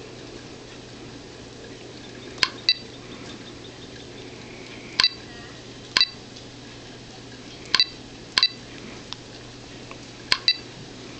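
Teletype 7100 truck GPS touchscreen giving short bright click tones as its on-screen keys are tapped, about a dozen ticks mostly in quick pairs, over a faint steady hum.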